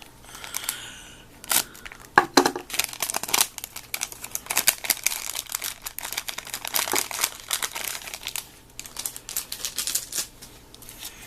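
Crinkling and tearing of a small plastic blind-bag wrapper being worked open: a steady run of sharp crackles and rips.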